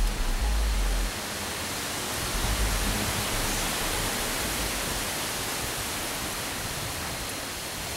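Steady hiss of noise, with a few low rumbles in the first second.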